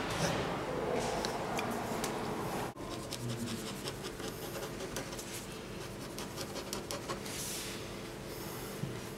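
Pen scratching on paper as lines are drawn and hatched, with many quick, short strokes; the sound breaks off briefly nearly three seconds in and then carries on.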